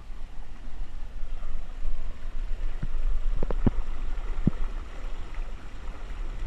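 Muddy storm runoff rushing over and around a red dome-shaped drain grate, a steady water noise with a low rumble underneath. A few sharp taps come in the middle.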